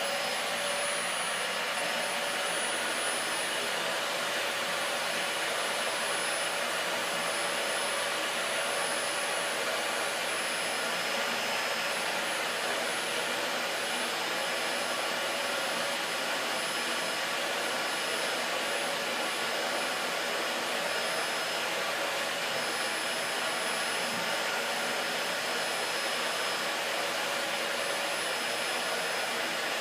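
Dyson DC40 Animal vacuum cleaner running steadily, drawing air through the groom tool brush attachment on its hose: a loud, even rush of air with a constant high whine.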